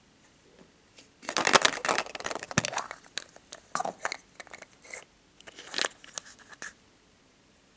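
Red plastic surprise-egg capsule being pried open, a dense run of crackling clicks and scrapes, then scattered clicks and knocks as a small plastic toy figure is handled and pulled out of the half-shell.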